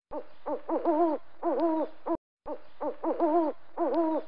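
Owl hooting: a rhythmic phrase of short hoots ending in a longer, falling hoot. It plays twice, with a brief break in between.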